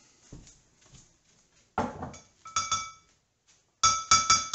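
Dishes and cutlery clinking: a dull knock about two seconds in, a couple of sharp clinks, then a quick run of four bright ringing clinks near the end.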